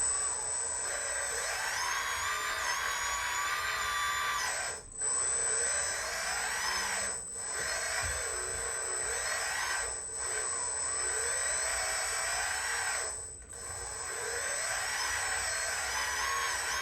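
Several radio-controlled construction models (excavators, dump trucks, loader) working at once: their electric motors whine, rising and falling in pitch as the machines speed up and slow down, with a few brief moments where the whine dips out.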